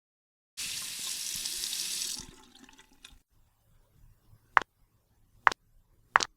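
Water running from a tap for about a second and a half, then trailing off, as when hands are washed. After it come three sharp separate clicks.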